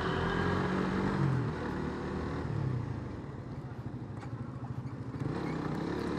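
Engine of a moving road vehicle running steadily, its pitch easing down and rising again a couple of times as the speed changes, over road and wind noise.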